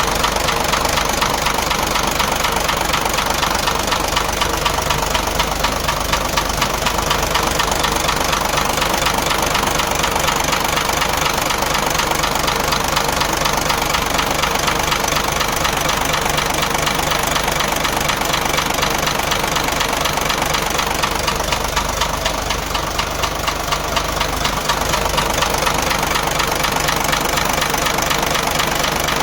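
Engine idling with a steady, rapid knocking clatter from a loose crankshaft (main) pulley whose retaining nut is not properly tight.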